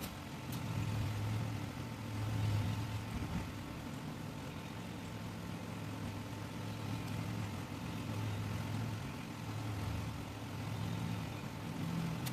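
A vehicle engine idling with a steady low hum, its pitch wavering slightly every second or two.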